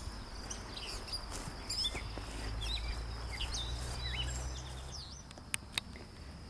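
Outdoor meadow ambience with songbirds giving short chirps and whistles over a steady high insect buzz. A low rumble runs underneath and stops about five seconds in, and two sharp clicks sound near the end.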